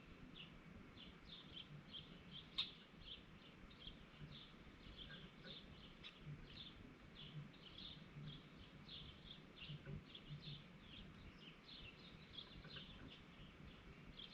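Faint, steady run of short high chirps, about three a second, from a small yard animal. A single sharp click comes about two and a half seconds in.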